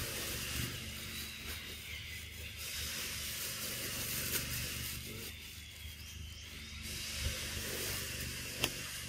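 Outdoor forest ambience: a steady low mechanical hum under an even hiss, with a single sharp click near the end.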